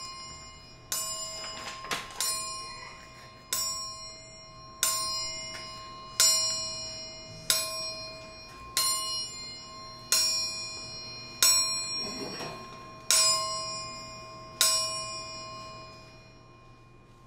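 A clock bell striking midnight: slow, evenly spaced strikes about every 1.3 seconds, each ringing on and fading before the next.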